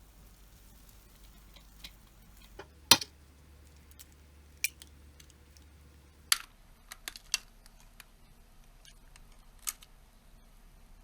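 Kitchen utensils and dishes clicking and tapping as food is prepared: a handful of separate sharp taps, the loudest about three seconds in.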